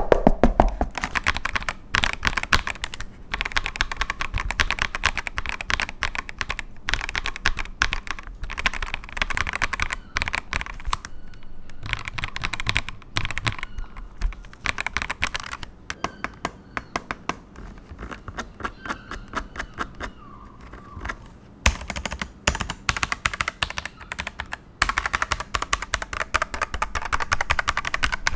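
Typing on an Ajazz AK992 mechanical keyboard with pre-lubed Ajazz switches: a fast, dense stream of key clacks. The keystrokes thin out and get quieter past the middle, then pick up again near the end.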